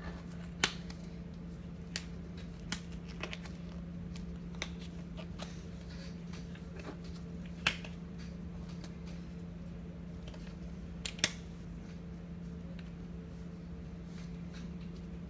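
Scattered sharp clicks and taps, a handful louder than the rest, over a steady low hum.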